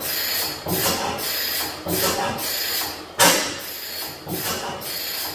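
15 hp Fairbanks Morse Type N stationary engine, running on propane, turning its big flywheels and firing unevenly about once a second, each firing a sharp exhaust beat over a steady mechanical clatter. The loudest beat comes a little past three seconds in. This is a long-dormant engine catching and firing only here and there during its first startup.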